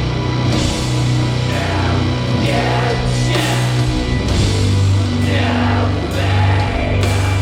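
Doom metal band playing live: a heavily distorted, low guitar and bass riff under cymbal crashes that come about once a second.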